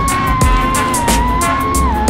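Music with a steady beat over the high whine of a freestyle FPV quadcopter's brushless motors and props. The whine holds a fairly steady pitch and dips briefly near the end as the throttle comes off.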